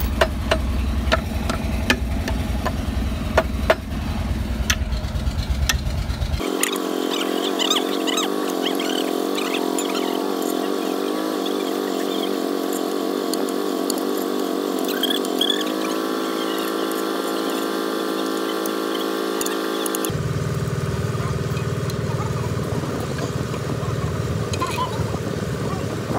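An engine running, its sound changing abruptly a few times, with sharp metal clicks of bolts and tools during the first few seconds.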